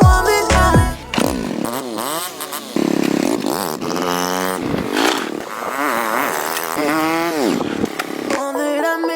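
1986 Honda Super Cub C90's small single-cylinder four-stroke engine running, its throttle blipped so the pitch rises and falls over and over.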